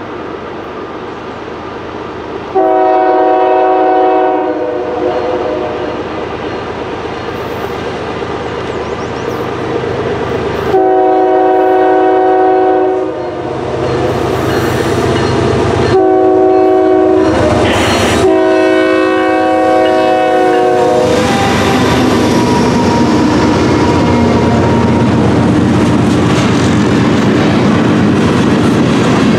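Diesel freight locomotive's air horn, on lead unit GE ES44DC CN 2335, blowing the long, long, short, long grade-crossing signal; the first blast is the loudest. After the last blast the two GE diesel locomotives pass close by with a steady engine drone, followed by the rumble and clickety-clack of freight cars rolling past.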